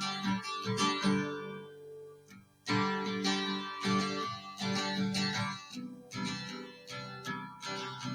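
Background music of strummed acoustic guitar, with a brief pause about two seconds in.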